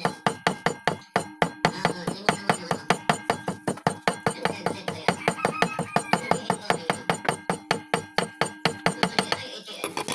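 Meat cleaver chopping rapidly on a thick wooden chopping block, an even run of sharp knocks about six a second, stopping shortly before the end.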